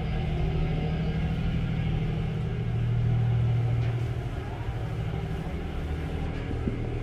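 Steady low drone of a passenger car ferry's engines, heard from the open deck, swelling a little about three seconds in.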